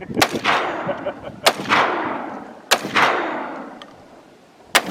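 Firearm shots: four sharp cracks spaced about one to two seconds apart, each trailing off in a long, fading echo.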